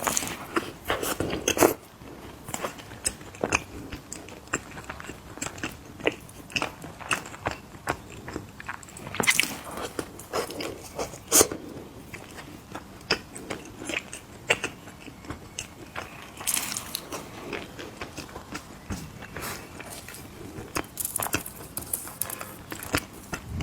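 Close-miked crunching and chewing of small crunchy cookies: irregular sharp crunches with quieter chewing between them.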